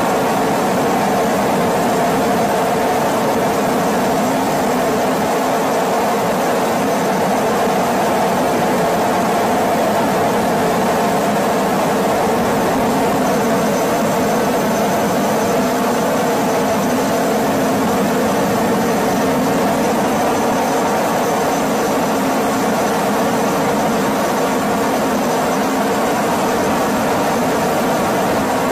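Steady engine drone of the helicopter filming from above, heard from inside the aircraft, with a faint high whine coming in about halfway through.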